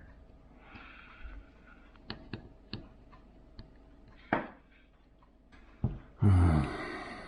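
Light, sharp clicks and ticks of metal tweezers picking small screws out of a smartphone's frame, scattered a few at a time. A breathy hiss about a second in, and a loud breathy vocal sound near the end.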